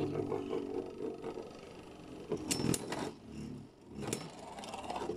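Two Beyblade Burst spinning tops whirring in a clear plastic bowl stadium, with a few sharp plastic clacks about two and a half seconds in and another near four seconds as they strike each other or the bowl wall.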